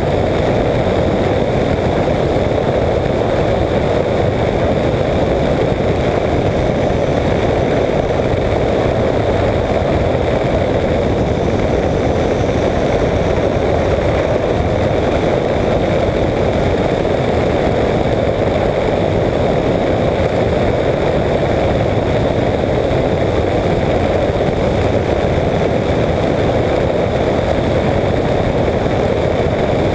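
Microlight trike in steady cruising flight, its engine and pusher propeller running at a constant, unbroken drone mixed with rushing air, heard from a camera out on the wing.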